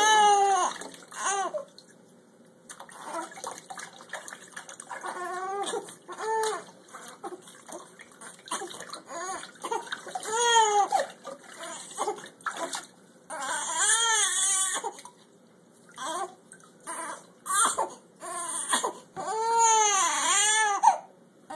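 Young baby crying while being bathed, in repeated bursts of wails that rise and fall in pitch, with short quiet gaps between them.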